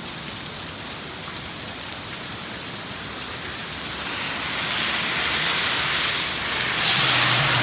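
Heavy rain pouring down in gusty wind, a steady hiss that swells about halfway through as a gust drives it and is loudest near the end.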